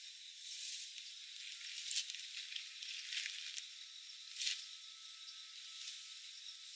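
Rustling of a backpack and tent fabric being handled and unfolded: several separate swishes over a steady high hiss.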